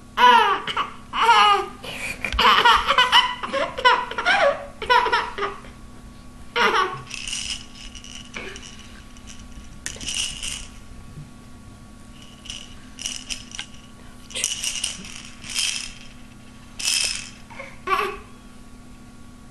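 Baby giggling and squealing in quick high-pitched bursts for the first several seconds, then a plastic toy rattling in short shakes every second or so.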